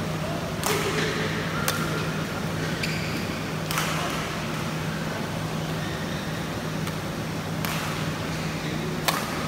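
Badminton rally: rackets hitting the shuttlecock back and forth, about six sharp cracks one to four seconds apart, with a few short shoe squeaks on the court floor and a steady low hum underneath.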